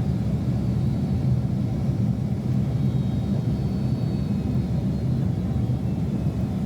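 Steady cabin noise inside a Boeing 767-300 airliner: a constant low rumble of engines and airflow, with a faint high whine above it.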